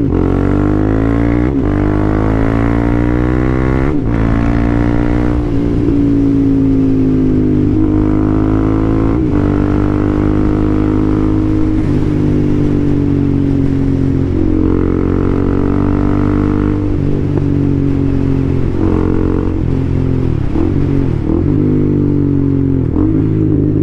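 The single-cylinder engine of a 2017 KTM Duke 390 runs loud and open through an exhaust with the catalytic converter and baffles removed. It accelerates away from a roundabout, its pitch climbing and dropping back at two upshifts in the first few seconds, then holds a fairly steady pitch at cruising speed.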